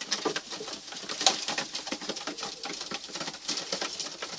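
Young tippler pigeons in a loft: cooing mixed with scattered short taps and rustles of the birds moving about.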